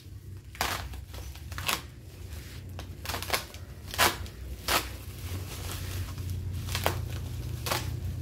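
Black plastic parcel wrapping and tape being slit with a utility knife and pulled apart, crinkling and ripping in about a dozen irregular crackles, with a low hum underneath.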